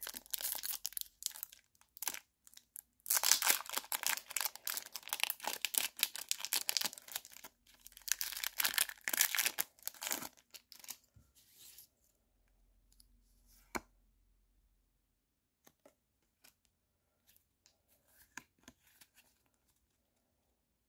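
Foil Pokémon TCG booster pack crinkling and being torn open in several bursts over the first ten seconds, then only faint scattered ticks as the pack and cards are handled.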